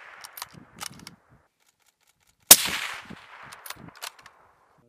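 A bolt-action sniper rifle fires one shot about halfway through, and the report echoes away over about a second. Short sharp clicks of the bolt being worked come before and after the shot, and at the start the echo of an earlier shot is still fading.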